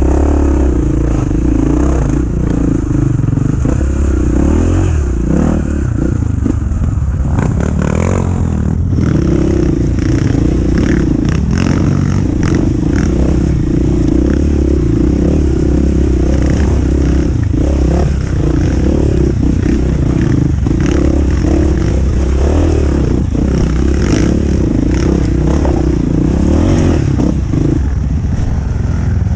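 Dirt bike engine running steadily under load as it rides a muddy forest trail, with clattering and scraping from the bike over rough ground. The engine note shifts briefly about eight seconds in.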